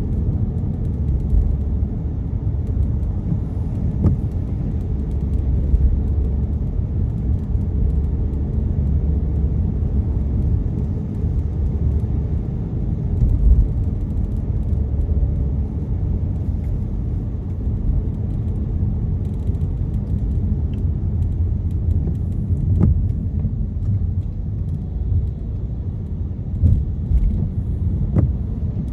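Steady low rumble of a car driving, tyre and engine noise heard from inside the cabin, with a few faint ticks.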